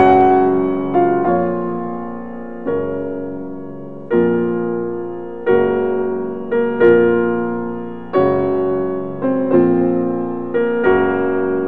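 Slow background piano music: chords struck about once every second or so, each ringing and fading before the next.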